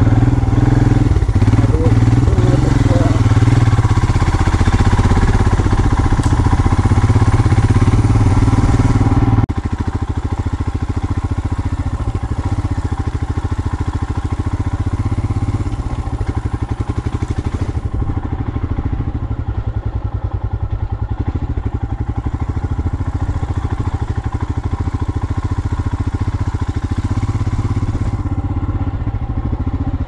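A vehicle's engine running steadily on the move, with road noise. It drops suddenly in loudness about nine seconds in and carries on more quietly.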